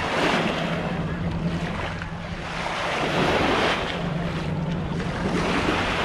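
Small waves washing up on a sandy shore, the surf noise swelling and fading every couple of seconds, with wind buffeting the microphone and a steady low hum underneath.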